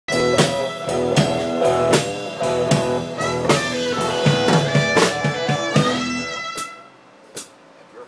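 A live blues band playing: electric guitar over a drum kit keeping a steady beat. The music stops about six and a half seconds in, leaving a few separate drum hits.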